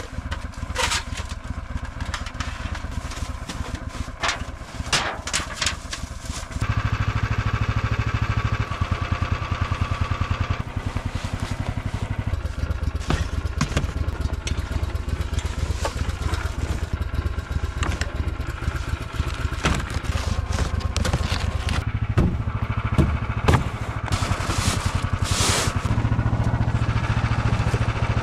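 Snowdog snow machine's small engine idling steadily, louder from about six seconds in. Scattered knocks and scrapes of camping gear are heard as it is packed into a plastic sled.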